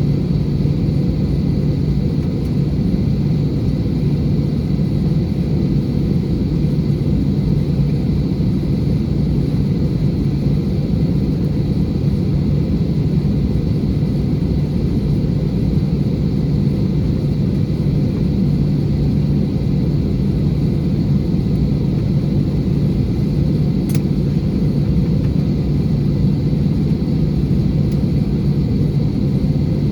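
Steady cabin noise inside an Alaska Airlines Airbus A320: a dense, unchanging rumble of jet engines and airflow, with a faint steady high tone over it. A single brief click comes about three-quarters of the way through.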